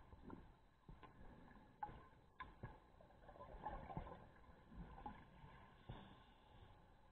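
Faint, muffled underwater noise heard through a dive camera's housing: a low rumble with scattered clicks and knocks, and a brief bubbling burble about four seconds in.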